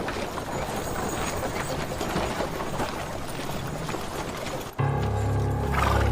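Drama soundtrack music. A busy, noisy passage cuts off abruptly about three-quarters of the way in and gives way to low, sustained music with a deep bass.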